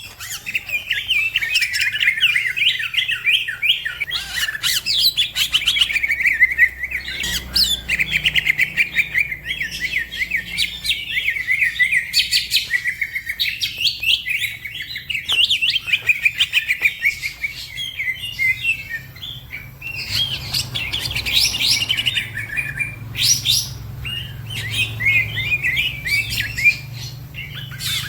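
Green leafbird (cucak ijo) singing in full, fast song: a continuous run of rapid high chirps, warbles and trills with only brief pauses.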